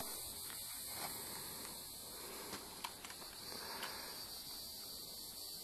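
Quiet outdoor ambience: a steady high-pitched hiss with a few faint clicks.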